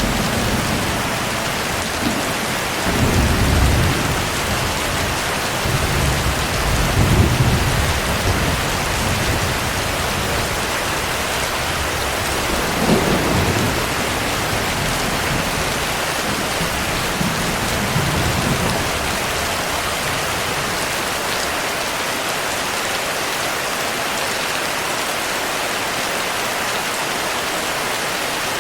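Steady heavy rain with thunder rumbling four times, the sharpest rumble about thirteen seconds in, then only the rain.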